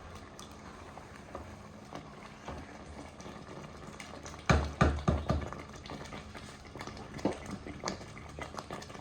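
Scattered light knocks and clicks of objects being handled, with a cluster of louder knocks about halfway through, over a steady low hum.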